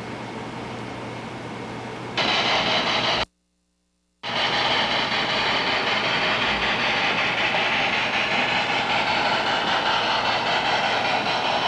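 O scale model freight train rolling along the track: a steady, loud rushing run noise. The sound drops out to dead silence for about a second, about three seconds in, then carries on. A quieter steady hiss comes before it.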